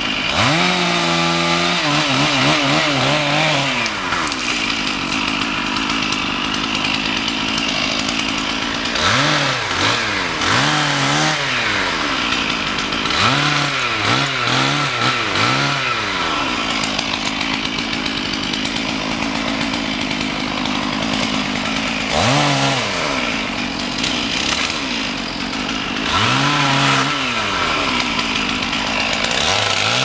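Chainsaws revving in repeated short bursts, each rising and falling in pitch, over a steady engine drone.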